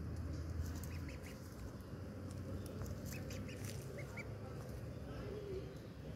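White duckling peeping: short, high-pitched peeps in small bursts of two or three, repeated a few times.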